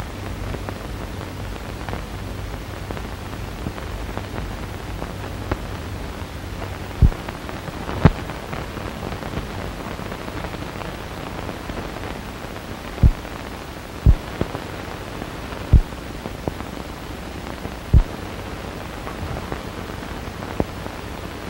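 Surface noise of an old film's optical soundtrack: a steady hiss with a low hum for the first few seconds, broken by several sharp pops about a second or more apart.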